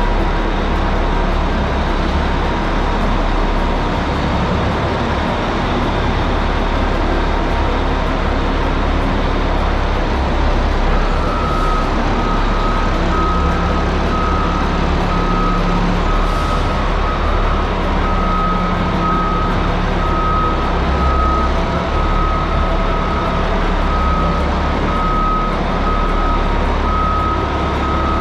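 Caterpillar 627G scraper's diesel engine running steadily under a heavy rumble. About eleven seconds in, its backup alarm starts a repeated beeping that carries on to the end, the sign that the machine is reversing.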